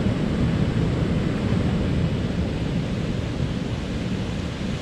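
Water pouring over a small river dam: a steady, low rushing.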